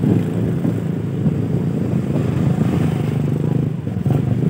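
Small motorcycle engine running steadily at low revs, a low, pulsing hum that dips briefly near the end.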